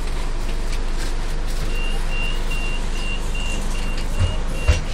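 Scania CN280UB city bus's door warning beeper sounding a row of about eight short, even high beeps, about two and a half per second, over the low steady rumble of the idling diesel engine. A sharp low thump comes near the end, as the last beep sounds.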